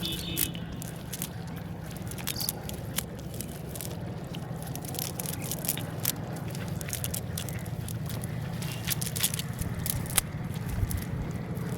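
Rain: drops ticking and tapping irregularly close to the microphone over a steady low noise.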